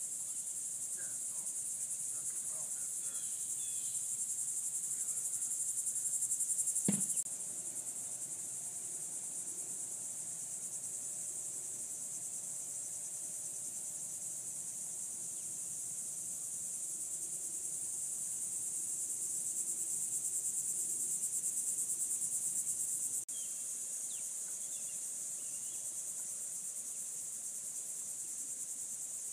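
Insects trilling in a steady, high-pitched chorus that swells and then drops off abruptly twice, about seven seconds in and again about two-thirds of the way through. A single low thump comes about seven seconds in.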